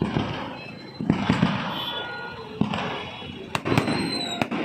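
Aerial firework shells (sky bombs) bursting in a rapid series of bangs, one right at the start and others a little after one second and near two and a half seconds, followed by a few sharp cracks near the end.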